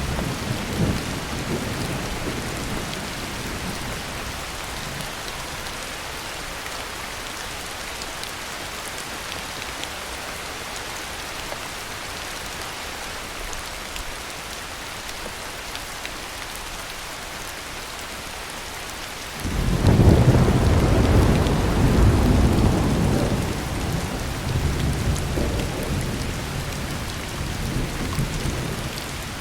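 Heavy rain falling steadily through a thunderstorm. A low thunder rumble dies away in the first few seconds; about two-thirds of the way in, a loud peal of thunder breaks suddenly and rolls on, easing off gradually toward the end.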